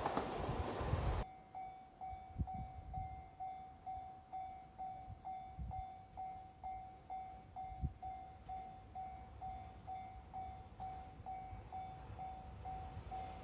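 A train running by loudly, cut off abruptly about a second in; then a Japanese railway level crossing's electronic warning bell ringing steadily, a little over two dings a second, with a few low thumps.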